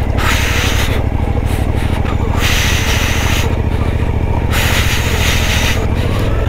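Suzuki motorcycle engine running steadily at low speed while its tyres crunch and hiss over loose gravel, in three surges of about a second each.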